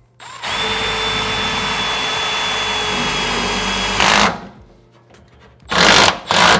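Cordless driver running steadily for about four seconds with a motor whine, driving a self-tapping screw into a galvanized sheet-metal duct seam, then cutting off with a brief louder burst. Two short loud bursts follow near the end.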